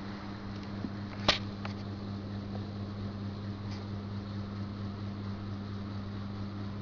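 Steady low hum with background hiss, broken by one sharp click a little over a second in and a couple of fainter ticks.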